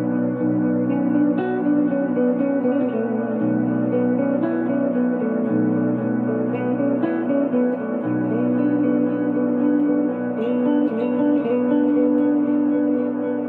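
Electric guitar improvising slow, sustained ambient notes, washed in echo and reverb.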